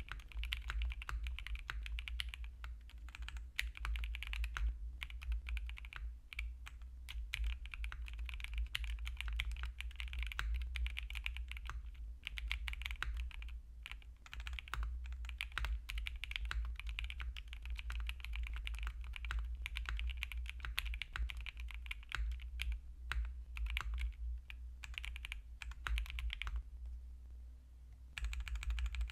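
Fast, continuous typing on an aluminium-top QK60 mechanical keyboard with stock Emogogo Hybrid Black switches, an FR4 plate with plate foam and DMK keycaps, with a short pause near the end.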